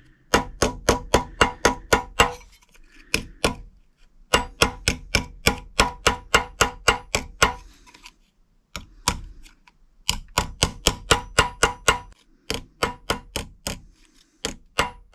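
Quick, light hammer blows, about five a second, planishing the edge of a thin drawn aluminium badge on a railway-track anvil. Each strike rings on the steel. The blows come in runs of a few seconds with brief pauses between them.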